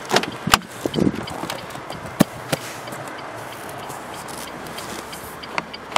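Driver's door of a 2006 Renault Megane opened by its outside handle: a sharp click of the handle and latch about half a second in, then a few more clicks and knocks as the door swings open, over a steady hiss.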